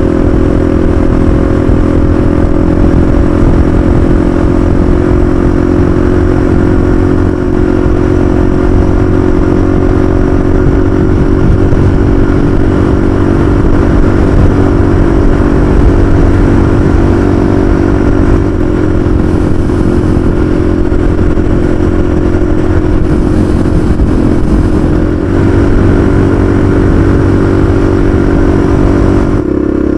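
Honda XLX 250R's single-cylinder four-stroke engine running steadily at cruising speed, heard from the handlebars over a constant rush of road noise. The engine note shifts slightly for a few seconds past the middle.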